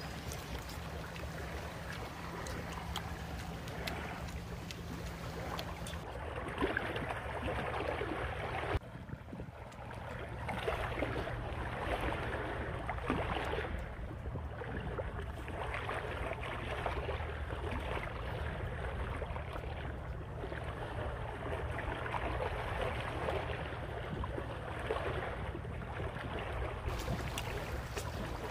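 Steady outdoor noise of wind and water, with a constant low rumble and irregular swells.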